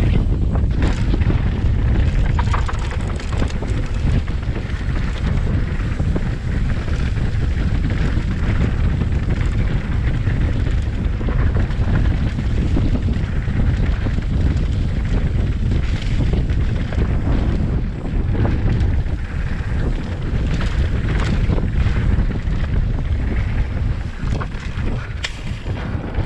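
Wind buffeting the microphone of a bike-mounted camera while a mountain bike rolls fast down a dirt singletrack, its tyres rumbling over the trail, with scattered clicks and knocks from the bike over bumps.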